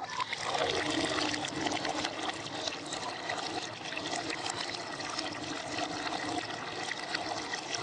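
A thin stream of water pouring and splashing steadily into a bowl of frothy liquid. The sound starts suddenly, and its pitch drops during the first second.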